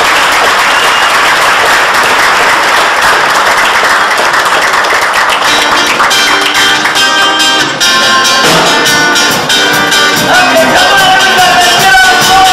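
Audience applauding, then about five seconds in a small band with accordion, guitar and drums starts playing a tune with a steady beat, the clapping carrying on under the music.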